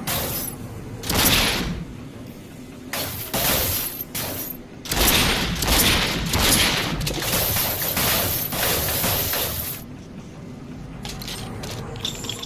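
Double-barrel shotgun sound effect: a series of loud blasts with long decaying tails, the most tightly packed run lasting about five seconds in the middle, followed by a few light clicks near the end.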